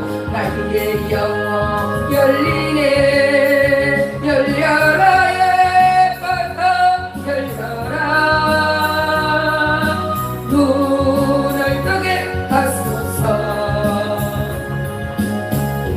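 Singing of a Korean gospel song over instrumental accompaniment, with long held notes and vibrato.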